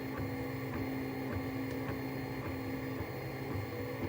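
3D printer running: its stepper motors hum in steady tones that break off and change every half second or so as the moves change, with faint clicks at the changes.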